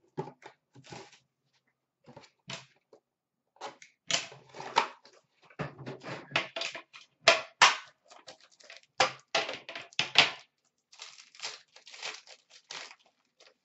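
Hockey card box packaging being torn open and handled by hand: irregular crinkling, ripping and clicking in short bursts with brief pauses.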